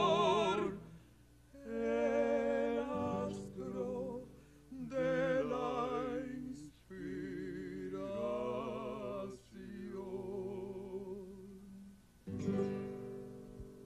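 A woman sings slow, held phrases in a full voice with wide vibrato, accompanied by acoustic guitar, with short pauses between phrases. A last phrase or chord starts near the end and fades out.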